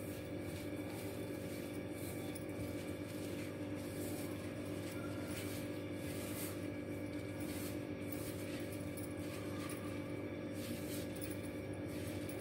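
Hands mixing and squeezing damp besan (gram flour) dough in a steel bowl: faint, irregular squishing and rubbing over a steady low hum.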